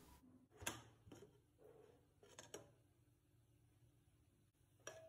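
Faint clicks and light clatter of a Prestige pressure cooker's lid being unlocked and lifted off, its whistle weight already removed and the steam let out; near silence in between.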